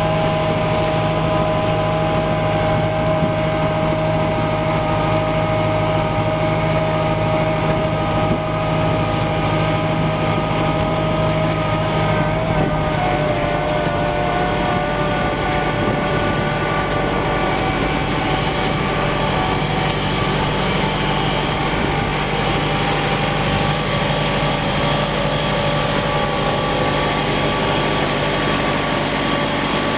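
Fendt 312 tractor engine running steadily under load while pulling a reversible plough through the soil, a constant engine note with a slight dip in pitch about halfway through.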